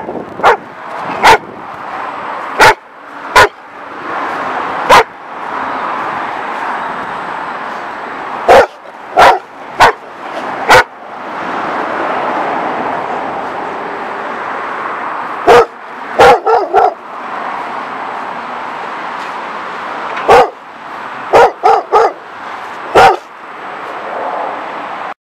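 German Shepherd dogs barking: single sharp barks spaced one to several seconds apart, with quick runs of three or four barks about two-thirds of the way through and again near the end, over a steady rushing background noise.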